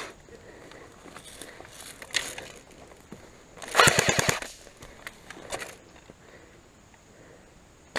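Airsoft rifle firing a short full-auto burst about four seconds in: a rapid string of sharp clacks. A shorter, fainter burst follows about a second later.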